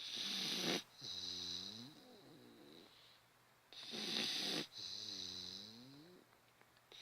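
Bulldog snoring heavily in its sleep, two breaths about four seconds apart. Each breath is a loud rasping snore followed by a longer, softer pitched sound that dips and rises.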